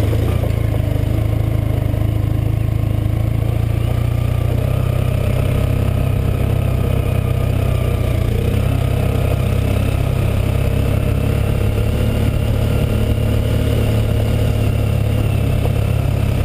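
Motorcycle engine running at a steady pitch while riding up a loose gravel track, heard from on the bike, with a strong low drone.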